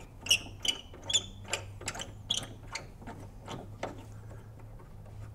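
Key-bed screws on a Mellotron M400 being tightened down: a run of small metallic clicks and ticks, about two or three a second. They are louder over the first few seconds and thin out to fainter ticks near the end.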